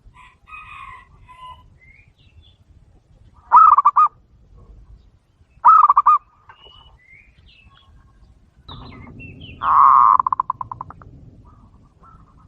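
Doves calling: three loud bursts of rapid, pulsing coos, the last one longer and trailing off in a stutter. Soft chirps come in between.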